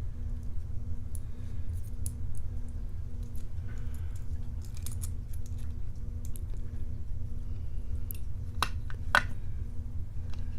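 Small metallic clicks and taps of tools and parts being handled on a euro-profile cylinder lock, with two sharper clicks close together near the end, over a steady low hum.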